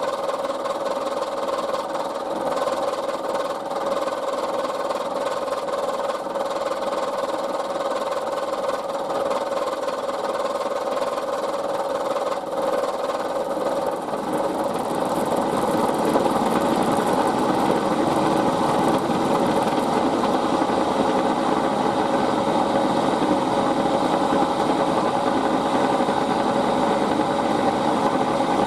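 Milling machine running, its cutter facing the edge of a brass block held in a vise. The cutting gets louder and rougher about halfway through.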